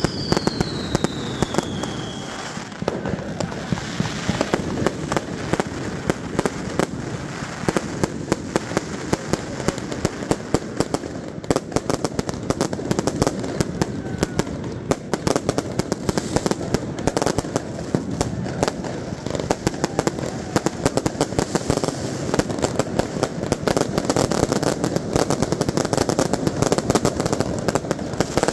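Fireworks and firecrackers going off without pause: a dense run of sharp bangs and crackling. A whistle falls in pitch during the first two seconds or so.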